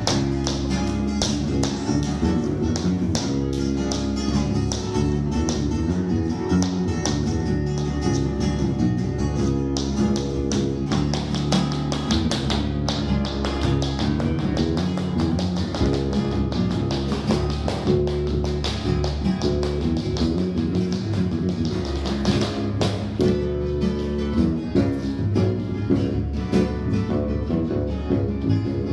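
Live flamenco music: an acoustic flamenco guitar playing, with the sharp taps of a dancer's shoes striking a wooden floor throughout.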